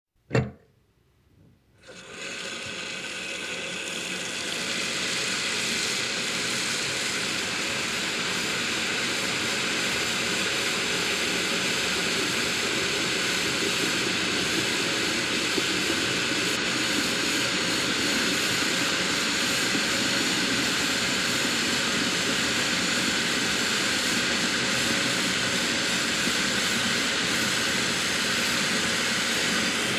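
A sharp click, then about a second and a half later a shower starts running: an even spray of water that builds over the first few seconds and then holds steady.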